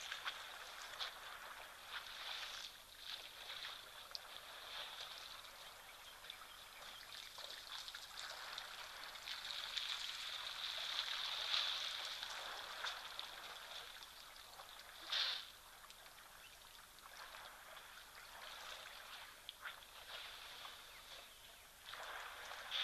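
Faint outdoor bush ambience: a steady high hiss that swells in the middle and fades again, with a brief louder burst about fifteen seconds in.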